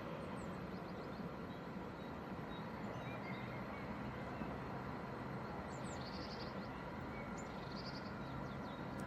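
Steady outdoor background noise with faint chirps of small birds scattered through it, and a short buzzy trill twice in the second half.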